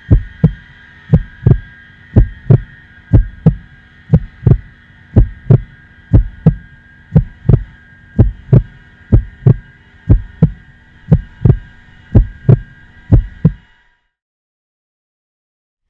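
A slow heartbeat sound effect: deep lub-dub thumps, one pair a second, over a steady high-pitched hum. Both stop together about two seconds before the end.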